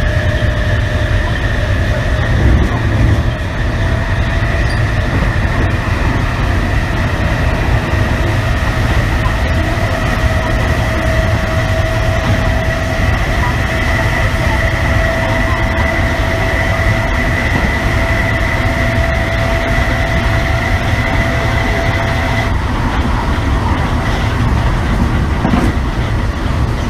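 Running sound inside an MTR East Rail Line MLR electric train car: steady rumble of the wheels and bogies on the track under a strong traction-motor whine at two steady pitches. The whine cuts off abruptly about 22 seconds in, leaving the rumble.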